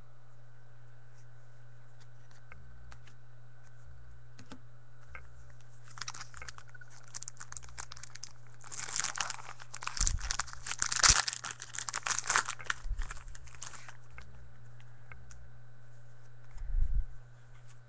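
Foil wrapper of a trading-card pack being torn open and crinkled: scattered crackles that thicken into a few seconds of dense tearing and rustling midway. A single knock near the end.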